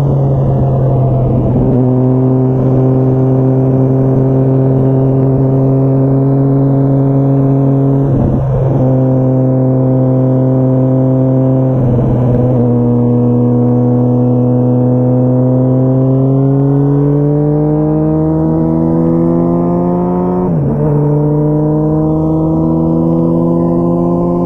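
2004 Honda CBR1000RR Fireblade's inline-four engine through a Jardine titanium aftermarket exhaust, running loud and steady under way, its pitch slowly climbing. The note is broken three times by quick gear changes, about a third of the way in, half way and near the end.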